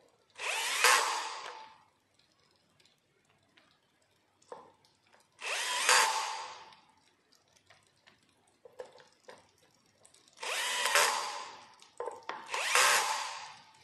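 Cordless drill/driver running four short bursts, driving the mounting bolts of a bike's front brake disc, each run whining and dying away as it stops.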